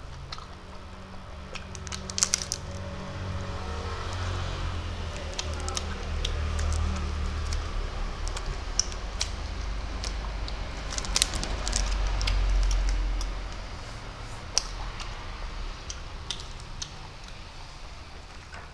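Close-up eating sounds: sucking and wet mouth clicks on a jelly candy on a stick, with plastic wrapper crinkling, over a low rumble that swells about twelve seconds in.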